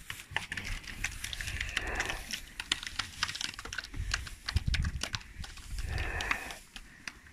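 Cattle pulling hay from a metal hay rack and chewing it: a dense run of crisp, irregular clicks and rustles, with a few dull low thuds about four to five seconds in.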